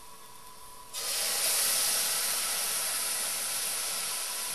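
Cold cream poured into a hot pot of fried onion and spices: the soft frying sizzle jumps to a loud, steady hiss about a second in as the cream hits the pan.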